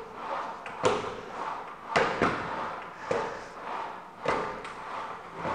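Repeated thuds, about one a second, as a child on the sliding seat of an inclined Concept2 rowing machine pushes off with his legs, rolls up the rail and comes back down, his feet landing on a weight plate.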